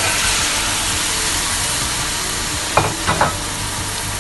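Raw chicken pieces sizzling in hot oil with sautéed onion, garlic and ginger in a pot, a steady hiss that is loudest just after the meat goes in. Two short knocks come a little under three seconds in, over the hum of a noisy range hood.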